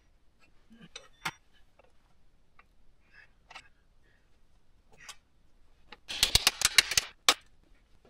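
Metal parts clicking and clattering as they are handled on a bike frame: scattered light clicks, then a burst of rapid clattering about six seconds in, ending with one sharp click.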